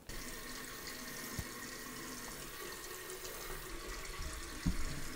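Water running steadily from a tap into a sink, with a soft knock about a second and a half in and another near the end.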